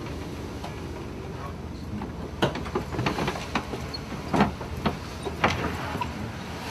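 Loaded tipper truck's diesel engine running low and steady, with a string of sharp metallic clanks and knocks from about halfway through.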